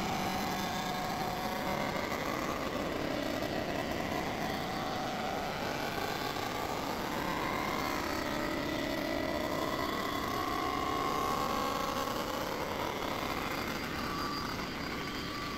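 Block surfacing machine's rotating cutter head taking a pass across the cast-iron deck of a Toyota 3VZ V6 block: a steady machining hiss with faint wavering tones. It is a clean-up cut to remove erosion and the rough factory finish so the head gasket will seal.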